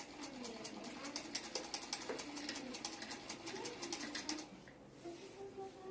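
Old hand-cranked sewing machine stitching, its needle mechanism clattering in a rapid, even rhythm that stops about four and a half seconds in.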